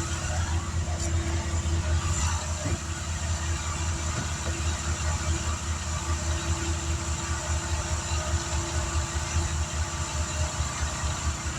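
An engine running steadily at idle, with a low, fluttering hum and a faint steady tone above it.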